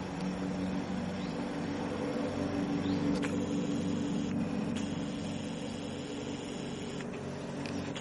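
Steady low hum of a motor or engine running, with a few faint clicks.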